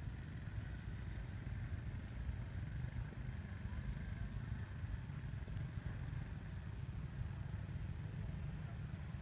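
Steady low rumble of wind buffeting the microphone, with a faint steady high hiss behind it.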